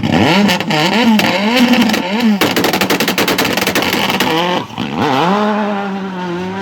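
Performance car engine blipped up and down a few times, then a rapid string of sharp exhaust bangs and crackles lasting about two seconds, then revved up again and held steady.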